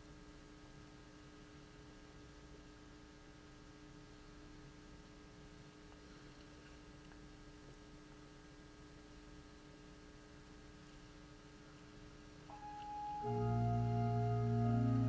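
Quiet, reverberant hall ambience with a faint held tone. About twelve seconds in, organ music enters: a single high note, then loud sustained chords over a deep held bass note.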